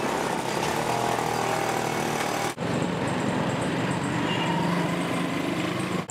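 Busy street traffic: engines of cars and motorcycles running in a steady mixed din, with a brief break about two and a half seconds in.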